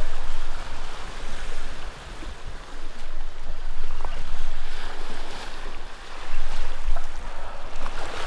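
Wind buffeting the microphone, rising and falling, over the steady wash of surf.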